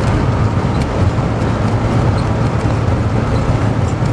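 Steady car engine and road noise from a vehicle under way, a constant low drone.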